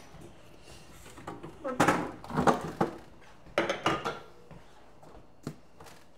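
Food containers being handled and set down while a fridge is emptied: a few clusters of thunks and knocks, with a single click near the end.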